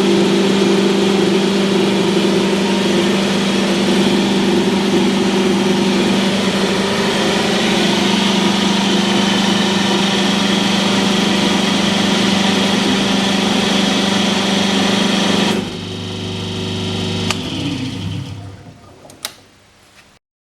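Hydraulic test bench running with a loud, steady hum, then shut off about 15 seconds in and winding down over the next few seconds. Two sharp clicks come as it dies away.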